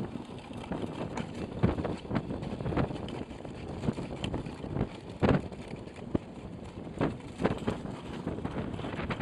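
Wind buffeting the microphone, with irregular bumps and scrapes from a sled being towed at speed over a snow-covered road.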